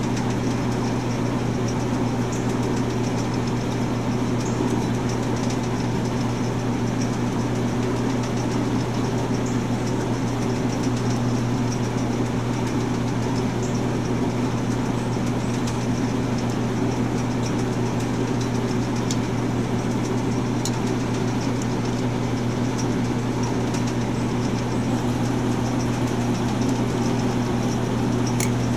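Steady low mechanical hum, even throughout, with a few faint light clicks from a magnetic-tipped screwdriver and small screws being worked into a small-engine carburetor's throttle plate.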